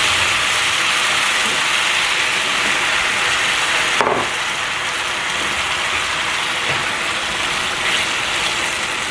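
Blended tomato sizzling in hot oil with frying rice in a stainless steel pan, a steady loud hiss, stirred with a wooden spoon. A short knock comes about four seconds in, and the sizzle is a little quieter after it.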